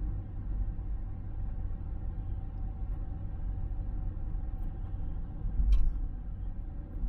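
Steady low rumble of a car's engine and tyres, heard from inside the cabin while driving, with one short knock about five and a half seconds in.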